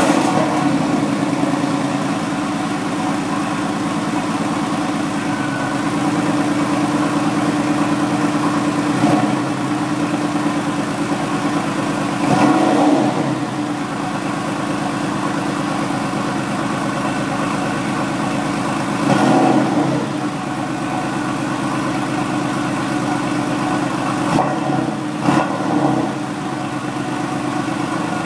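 Porsche 993 Carrera 4S's air-cooled flat-six, breathing through modified mufflers, idling just after starting. A few throttle blips rise and fall in pitch, including two quick revs near the end.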